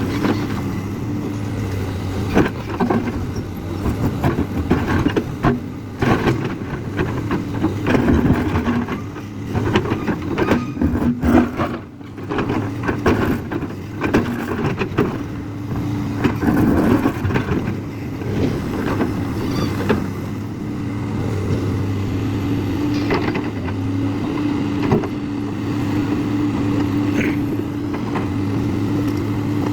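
JCB excavator's diesel engine running, its level rising and falling with frequent knocks and rattles through the first two-thirds, then settling into a steadier, even run.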